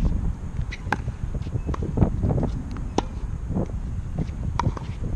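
Wind buffeting the microphone with a loud, uneven rumble, over which come sharp pops of a tennis ball being struck and bouncing during a rally, the clearest about a second in and about three seconds in.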